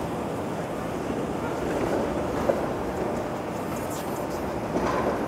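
City street traffic: a steady rush of passing vehicles, with one brief sharp click about two and a half seconds in.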